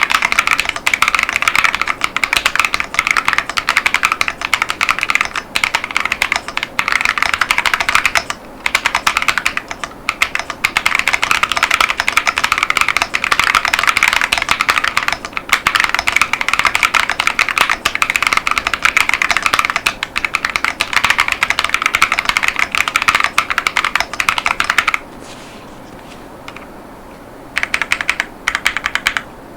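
Steady, fast typing on an Epomaker Tide 75 mechanical keyboard with KTT Baby Blue tactile switches and PBT Cherry-profile keycaps: a dense run of keystroke clacks with a couple of brief breaks, then a pause of about two seconds near the end before typing resumes.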